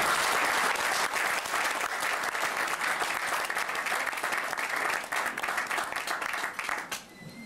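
Audience applauding: many people clapping at once, steady and dense, dying away near the end.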